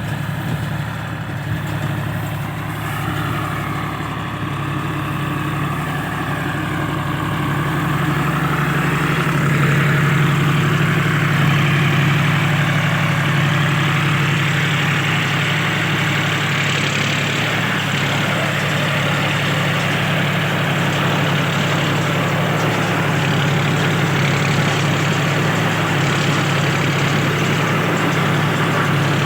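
Tractor engine running steadily while working a round straw baler, with a low engine hum under a wide clatter and whir of machinery. It grows louder about eight seconds in and then holds.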